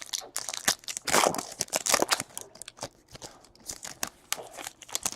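Baseball trading cards being flipped through and handled: a quick run of crisp flicks, snaps and rustles, louder around a second in and again about two seconds in.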